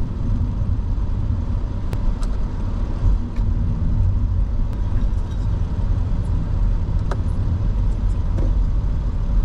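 A car driving on the road, a steady low rumble of tyres and engine heard from inside the cabin.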